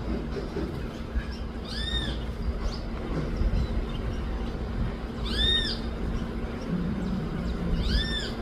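A bird calling: a short arched note, rising then falling, repeated three times about three seconds apart, over a low rumble.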